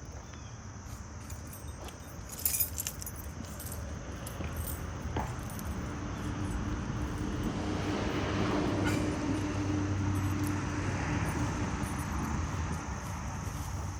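A motor vehicle passing: its noise, with a steady low tone in it, builds over several seconds, peaks just past the middle, then fades. A few small metallic clinks sound about two and a half seconds in.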